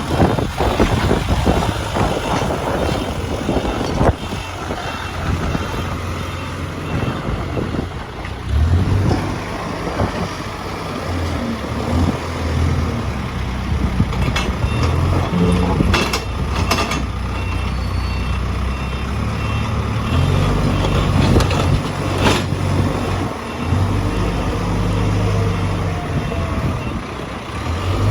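Case 851EX backhoe loader's diesel engine running, its pitch and load rising and falling repeatedly as the machine works, with several sharp metallic knocks. A reversing alarm beeps briefly about halfway through.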